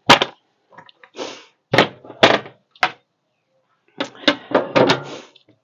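Sharp plastic knocks and clatters, in a few quick groups, as a collapsible plastic dish drainer is handled and set into the kitchen sink.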